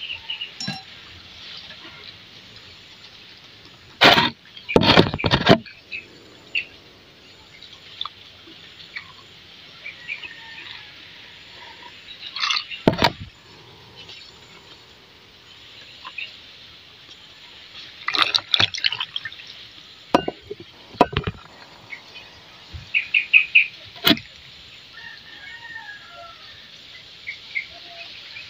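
Biting into and crunching a fried snack close to the microphone, in scattered clusters of sharp crunches with pauses of chewing between.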